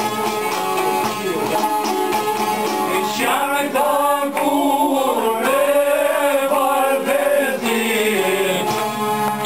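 Albanian long-necked folk lutes (çifteli) plucked in a quick, steady rhythm. About three seconds in, a group of men joins in unison song on long, bending notes, stopping just before the end while the plucking goes on.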